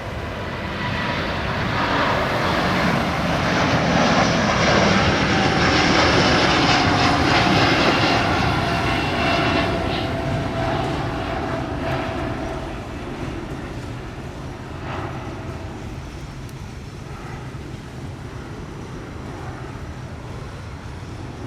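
Jet airliner's engines at takeoff power, the noise swelling as it passes and then fading slowly with a gradual drop in pitch.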